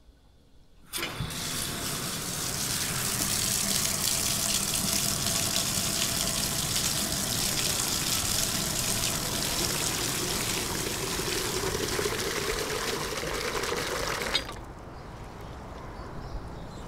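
Water gushing from a hand pump's spout into a container, steady and loud, with a tone that rises over the last few seconds as the container fills. It cuts off suddenly about two seconds before the end, leaving a much quieter background.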